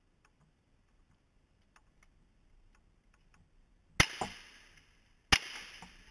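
Faint clicks of a side-by-side double-barrel shotgun being handled, then two loud shotgun blasts about a second and a half apart, one from each barrel, each ringing on after the shot.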